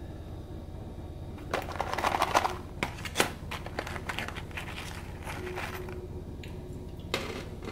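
Fingers rummaging through wasabi-coated peanuts in a clear plastic tub: the hard nuts click and rattle against each other and the plastic. The rattling comes in a busy burst starting about one and a half seconds in, thins to scattered clicks, and picks up again near the end, over a steady low hum.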